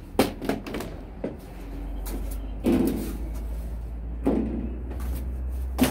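The hard plastic inner tailgate cover of a Ford Ranger being carried off and set down: a few light knocks in the first second, then heavier thuds about three and four seconds in and a sharp knock near the end. A low steady hum lies underneath.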